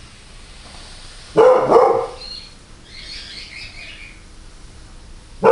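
A dog barking: two sharp barks about a second and a half in and another right at the end. Faint high chirping comes between them.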